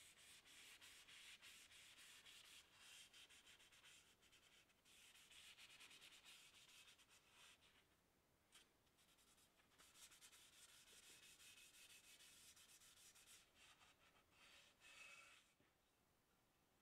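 Faint rasping rubs of a sanding pad and cloth on a wooden axe handle, working finishing oil into the wood, in runs of a few seconds with short pauses.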